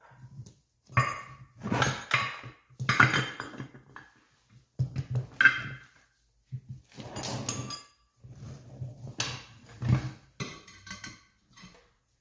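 Irregular metal clanks and rattles from a wheel and tools being handled, in a dozen or so short clusters a second or so apart.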